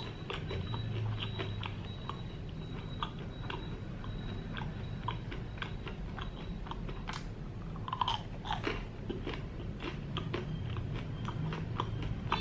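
Close-up chewing of crispy batter-fried breadfruit, with many small, irregular crunches of the crust.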